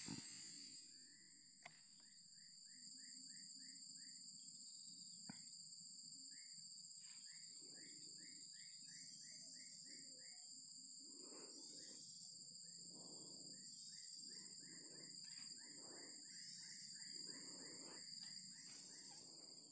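Faint forest ambience: a steady high-pitched insect drone, with short chirps repeated in quick runs of about four to five a second.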